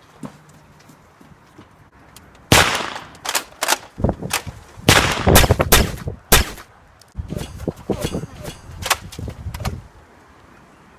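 Nerf blasters firing in a rapid exchange of shots, starting about two and a half seconds in. The shots come thick for about four seconds, then a softer run of shots follows until near the end.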